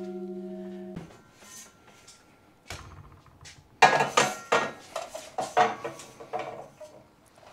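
Steel tube ringing from a knock, cut off about a second in. Then a run of metallic clanks and rattles as the tube is set down and shifted on a metal table.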